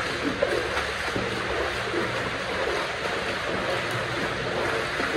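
Steady rush of running water inside the tunnel, with a few faint splashes and knocks.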